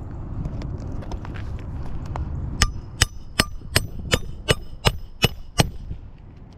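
A series of nine quick, evenly spaced hammer blows on a metal roofing tool, the snake jack, each with a brief metallic ring. They start about two and a half seconds in, after a low rumble.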